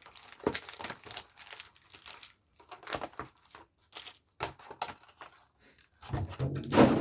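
Foil Pokémon booster pack wrapper crinkling and tearing as it is opened by hand, in quick irregular crackles, louder and denser about six seconds in.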